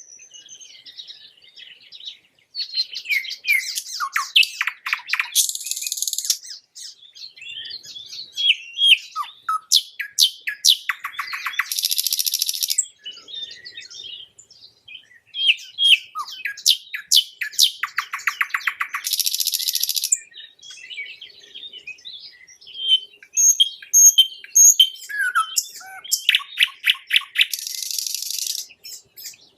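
Nightingale singing a string of varied phrases: fast runs of repeated notes, harsh buzzing phrases and short high whistles, with brief pauses between them.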